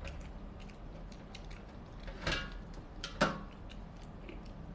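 Light clicks and taps of king crab shell pieces and utensils being handled at a meal table, with two louder brief sounds about two and three seconds in.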